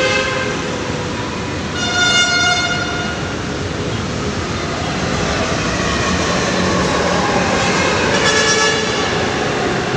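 LRT-1 third-generation light rail train sounding its horn once for about a second, starting about two seconds in. The train then runs into the station, and the rumble of wheels and motors grows louder over the second half.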